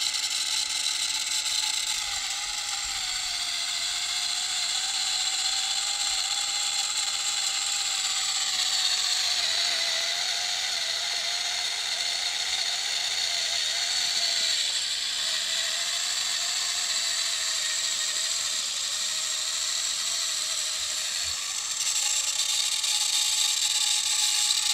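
Small DC electric motors and gearing of a homemade 3D-printed model tractor whirring steadily as its model rotavator spins and tills sand. The pitch wavers and dips about midway and the sound grows a little louder near the end. The repaired rotavator is working properly.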